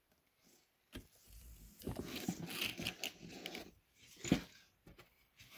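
Handling noise of a Braun Nizo 801 macro Super 8 camera turned over in the hands: a click about a second in, a stretch of rubbing and scraping against the body, a knock a little after, then a few small clicks.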